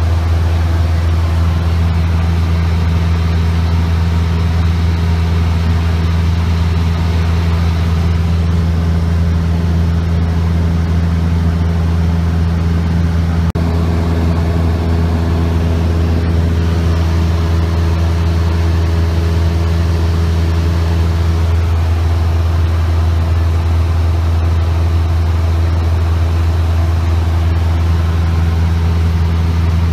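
Cessna 172's piston engine and propeller running steadily in cruise flight, heard inside the cabin as a loud, even low hum.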